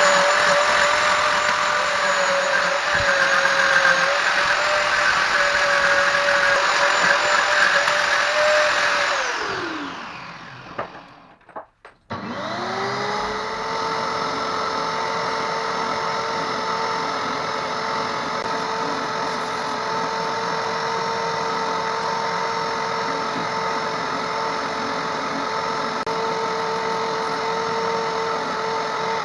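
A small high-speed electric power-tool motor runs with a steady whine, winds down and stops about ten seconds in, then starts again about twelve seconds in at a lower pitch and runs steadily before winding down at the end.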